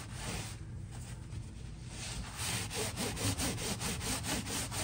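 Paper towel rubbed hard back and forth over a tooled leather belt, wiping off antique finish paste, in quick, regular strokes at several a second. The strokes ease off briefly shortly after the start, then pick up again. The paste has dried a little too long, so it takes extra scrubbing to lift.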